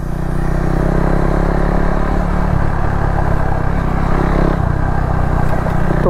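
Single-cylinder engine of a KTM Duke motorcycle running steadily while being ridden.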